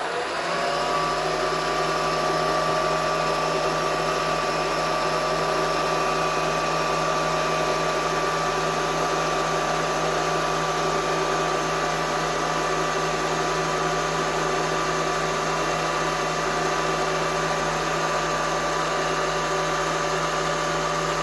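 Vertical knee mill's spindle running steadily in high range, a constant motor-and-drive whine with several held tones, while a spot drill is worked into the part.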